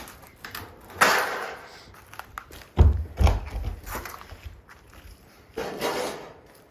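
A few thumps and scuffs on old wooden boards: a scuffing noise about a second in, two heavy dull thuds around three seconds, and another scuff near the end.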